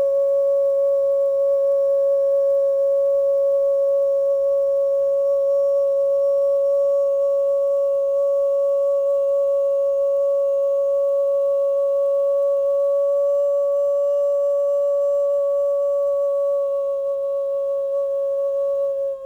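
A single sustained sound-healing tone held at one steady pitch, with faint overtones above it, dropping away right at the end.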